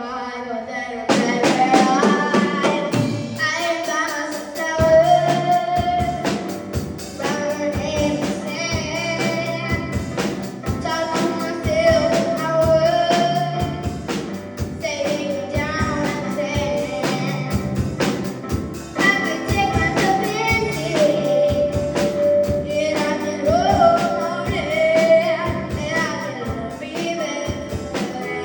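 Female vocalist singing a pop ballad over instrumental accompaniment with a steady beat, holding long notes with vibrato.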